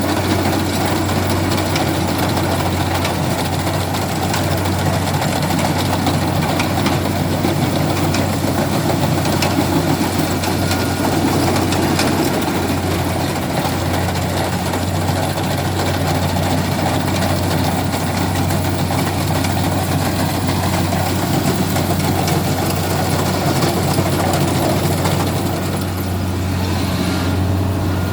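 Kubota rice combine harvester running steadily: a constant engine drone with a strong low hum, overlaid by the noise of its machinery working.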